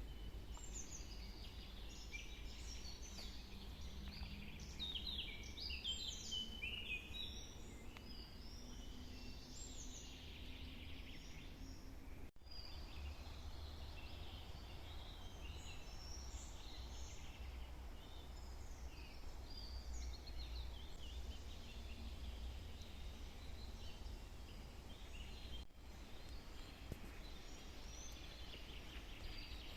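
Several small songbirds chirping and trilling in a forest, a busy overlapping chorus most dense in the first ten seconds and thinner after, over a low steady rumble.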